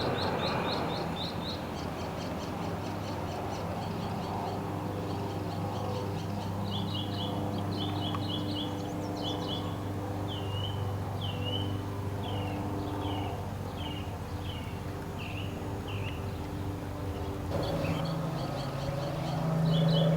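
A small bird chirping outdoors: quick runs of short high notes, then a stretch of separate downward-sliding notes about every half second, then quick runs again near the end. Beneath it runs a steady low mechanical hum that gets louder near the end.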